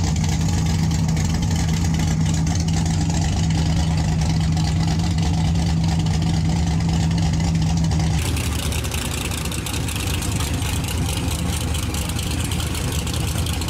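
Drag race car engine idling with a steady low drone. About eight seconds in the steady hum drops away and the idle carries on with more hiss, a little quieter.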